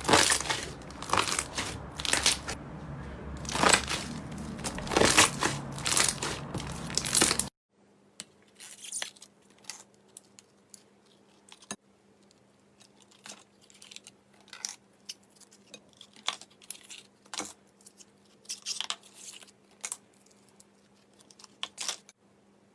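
Slime being handled, making dense crackling clicks and pops. About seven seconds in it cuts to a quieter clip of sparser, separate clicks.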